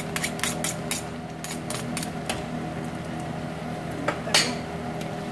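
Metal spatula and spoon clinking and scraping against a stainless steel pan while stirring thick refried beans: a quick run of clicks for the first two seconds or so, then a louder clink about four seconds in. A steady hum runs underneath.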